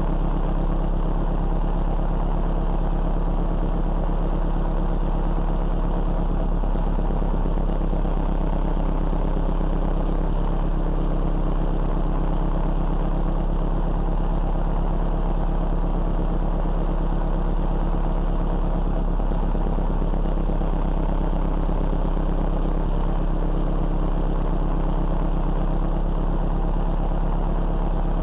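Car engine idling steadily, an even low hum with no change in engine speed.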